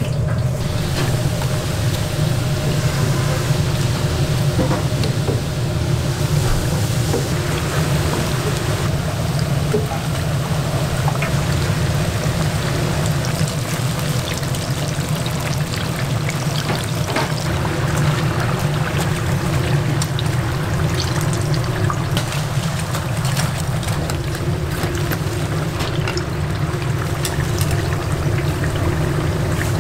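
Commercial kitchen sound of cooking: a steady low hum from kitchen equipment, with liquid pouring and sloshing and scattered light clicks of utensils.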